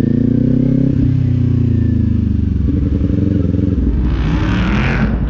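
Kawasaki Z400 parallel-twin engine heard from the rider's seat: the revs rise briefly, then fall away over about two seconds as the throttle is closed, and the engine settles to a low steady run. About four seconds in, a short rush of hissing noise comes over it.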